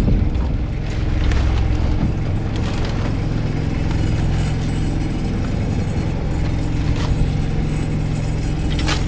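Fishing boat's engine running steadily with a low hum, with occasional knocks and rustles as crabs and a plastic sack are handled on deck.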